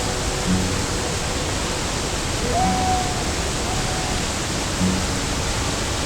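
A steady rushing hiss, an added sound effect, with faint music notes sounding a few times underneath.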